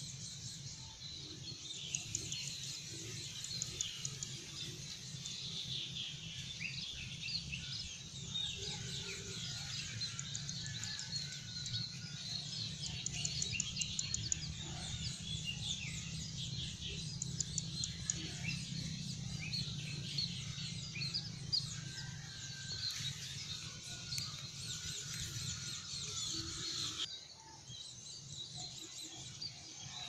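A busy chorus of small birds chirping and twittering over a steady low hum. The chirping thins out suddenly near the end.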